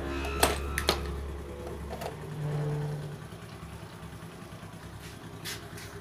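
Small electric motor of a working satellite model running with a low steady hum, with two sharp switch clicks about half a second and one second in.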